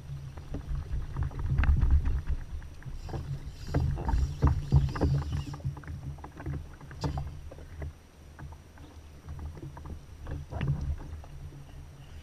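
Sea water slapping against a fishing kayak's hull, with a low rumble and many scattered sharp knocks and clicks from the hull and the angler's gear as he works a jigging rod.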